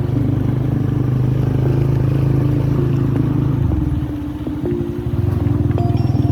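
Engine of a moving road vehicle running steadily. It eases off about four seconds in and picks up again about a second later.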